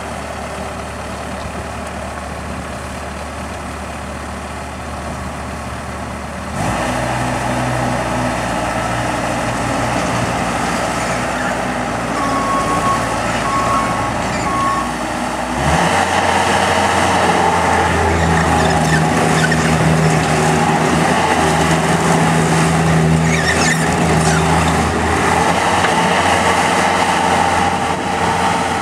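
2005 Bobcat T180 rubber-track skid steer's diesel engine running, first at a steady idle, then throttled up about six seconds in and again about halfway through, running faster and louder as the machine is put to work. Three short beeps sound near the middle.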